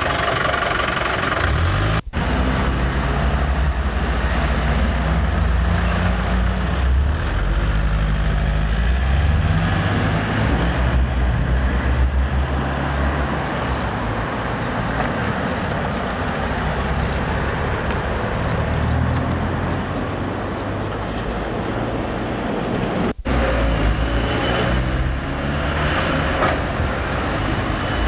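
Road traffic: car engines running and passing on a street, with a steady low rumble throughout. The sound cuts out for an instant twice, about two seconds in and again near the end.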